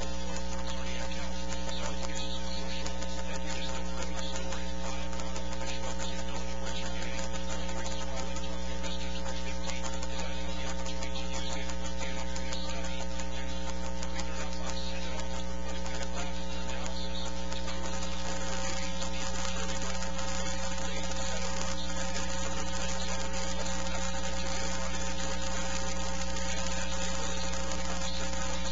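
Steady electrical mains hum and buzz with a layer of hiss, holding unchanged throughout.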